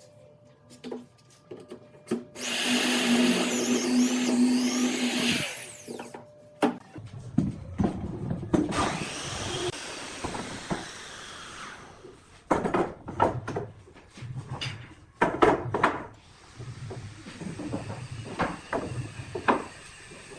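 A power tool's motor runs for about three seconds. It is followed by irregular knocks, clatter and scraping of wood being worked and handled.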